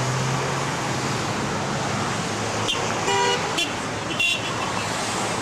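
Steady road traffic passing, with car horns honking in support of the sign-wavers: a short honk about three seconds in, a brief toot about a second later, and another honk starting right at the end.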